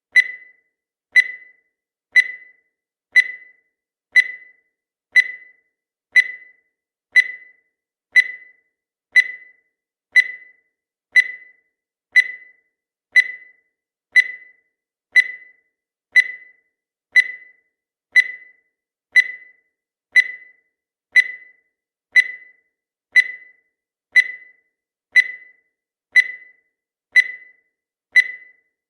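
Countdown timer sound effect: a short, high electronic tick-beep once every second, each dying away quickly, in an even rhythm.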